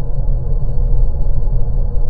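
Steady, deep rumbling noise for sleep, strongest in the deep bass and muffled, with no top end, like brown noise; it goes on evenly without change.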